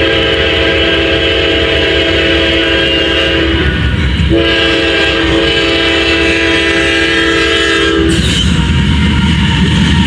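A CSX locomotive's air horn blows two long blasts, each about four seconds, with several notes sounding together, over the steady low rumble of the approaching train. A little before the end the horn stops and the rumble of the oncoming locomotive grows louder.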